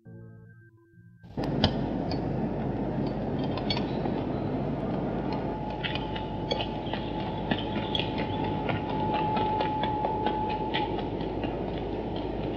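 A vehicle's steady rumbling and rattling noise, full of clicks, starts suddenly about a second in. A steady high whine comes and goes over it.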